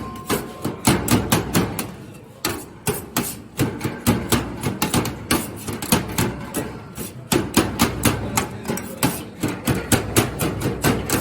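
Rapid, uneven knocking of a knife chopping chicken shawarma meat on a cutting board, several strokes a second with brief pauses.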